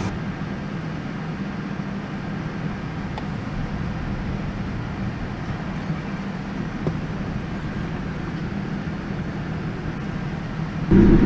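Steady cabin hum of a Boeing 787-10 airliner during pushback, heard inside the cabin at the window, with a low droning tone and a couple of faint clicks. Near the end it cuts suddenly to a much louder airliner drone with strong steady tones.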